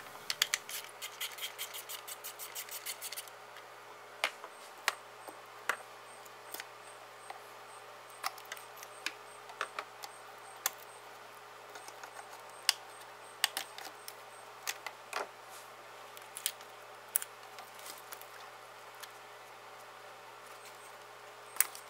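A ratchet wrench clicking rapidly for about three seconds as a bolt is backed out. This is followed by scattered sharp clicks and light rattles as plastic electrical connectors are unclipped and the wiring harness is pulled free.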